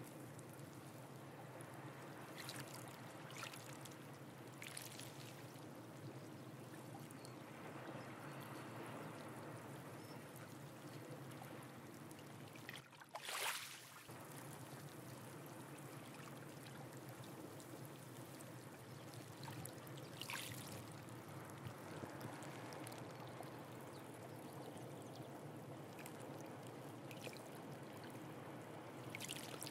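Faint seawater trickling and lapping among shore rocks and tide pools, steady throughout, with a few short splashes, the loudest about halfway through.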